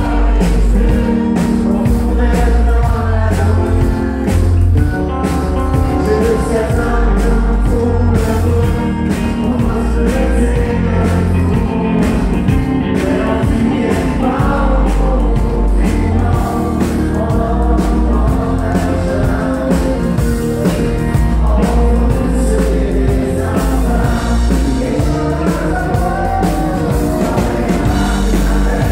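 A live band plays loud music with a steady beat and a sung lead vocal: electric and acoustic guitars and a fiddle.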